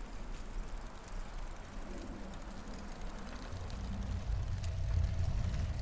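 Low rumble of a recumbent trike rolling along a paved trail, wind and tyre noise on the microphone, getting louder about halfway through.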